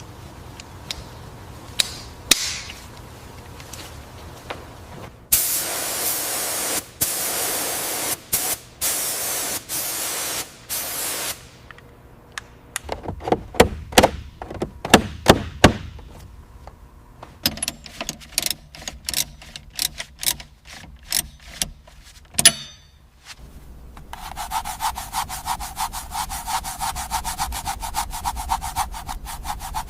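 Workshop tool sounds in three stretches: about six seconds of steady loud hissing or grinding noise, then a run of sharp knocks and taps, then a fast, even rasping like sanding or scraping near the end.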